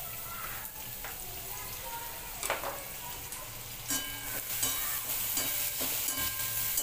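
Chopped onion sizzling in hot oil with cumin seeds in a steel kadhai. From about two and a half seconds in, a metal spoon scrapes and knocks against the pan as the onion is stirred, more often in the second half.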